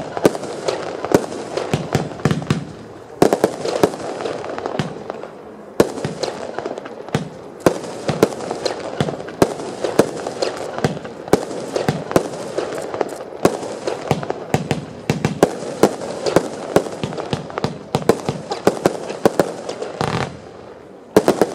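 A 55-shot Startrade Legende firework battery firing its shots in quick succession: a dense run of launches and bursts, several bangs a second. It briefly dips about twenty seconds in, then a last cluster of bangs follows.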